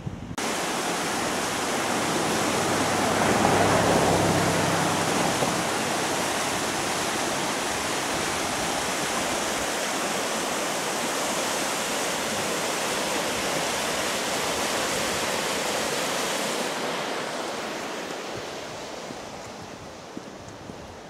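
Shallow river water rushing steadily over rocks and small rapids below a bridge. A low hum swells briefly about four seconds in, and the rush fades toward the end.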